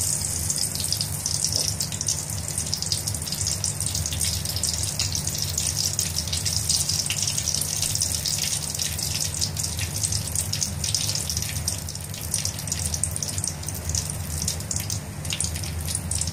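Mustard seeds and urad dal sizzling in hot oil in a steel kadai, with many small crackles and pops as the seeds splutter: the tempering stage. A low steady hum runs underneath.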